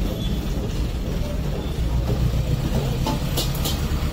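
Steady low rumble of street noise, with a couple of short light clicks about three and a half seconds in.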